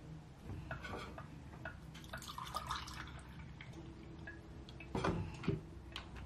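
Liquid ingredients dripping and pouring as a sauce is mixed, with small clicks of utensils and containers, then two sharper knocks about five seconds in.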